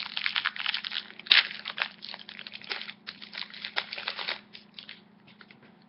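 Foil booster pack wrapper crinkling and tearing as a Yu-Gi-Oh pack is opened, a dense run of quick rustles that thins out and fades after about four seconds.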